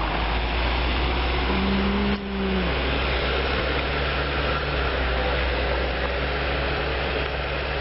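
UAZ off-roader's engine running hard under load, steady and loud, as it tries to climb an icy slope on rear-wheel drive with homemade tyre chains and fails to get up.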